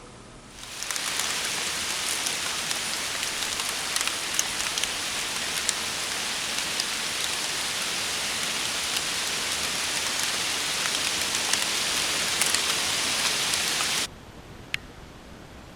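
Steady rain-like pattering hiss with scattered small ticks. It begins about half a second in and cuts off abruptly near the end, followed by a single click.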